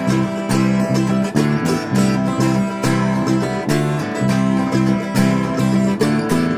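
Upbeat background music led by acoustic guitar, with plucked notes over a bass line on a steady beat.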